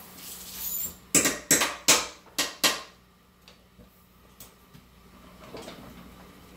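Five sharp clacks of kitchenware being struck, under half a second apart, starting about a second in and ringing briefly. A few faint clicks follow.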